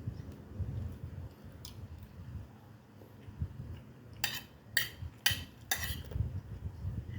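Cutlery clinking against a plate or bowl while eating: four sharp clinks about half a second apart past the middle, with lighter handling sounds around them.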